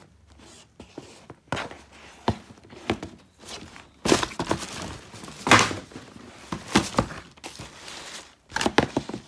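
Shoes and cardboard shoe boxes being handled: a string of irregular thumps and knocks mixed with rustling, busiest about four to seven seconds in.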